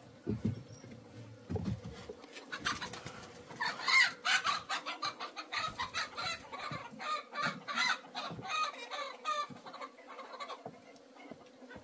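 Chickens clucking in a fast flurry of short calls that starts about two seconds in and dies away near the end, after two low thumps at the start.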